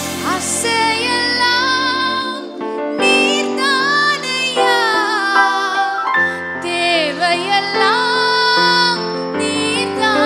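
A woman sings a worship song into a microphone, her voice sliding and wavering between notes, over held accompaniment chords that change every few seconds.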